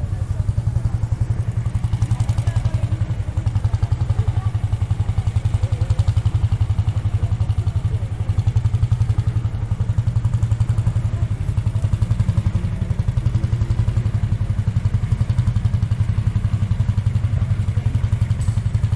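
Vintage tractor engine idling with a steady, even chugging.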